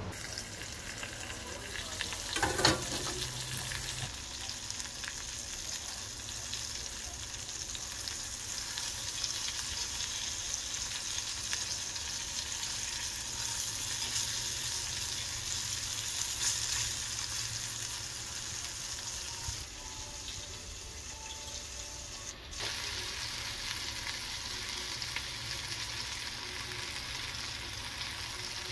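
Flour-breaded shrimp frying in hot olive oil, a continuous crackling sizzle, with one sharp knock about two and a half seconds in.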